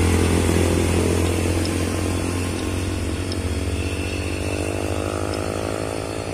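Loaded heavy truck's diesel engine running as the truck passes and pulls away, its low drone fading. From about three seconds in, a motorcycle's small engine rises in pitch as it accelerates behind the truck.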